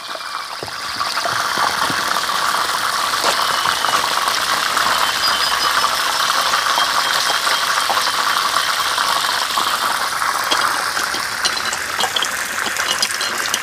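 Squid frying in hot oil: a steady sizzle with fine crackling.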